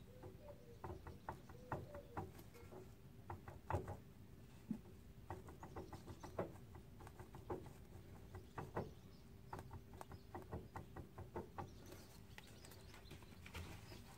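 Faint, irregular clicks and light clunks from a BMW E39's propshaft joint as it is twisted back and forth by hand, the knock of free play in a worn driveshaft joint.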